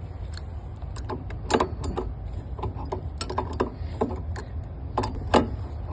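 Irregular metal clicks and taps from a hand tool tightening a trailer's axle spindle nut down onto the hub, some clicks in quick pairs, over a steady low rumble.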